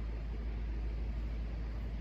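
Steady low rumble with a faint, even hiss, unchanging throughout.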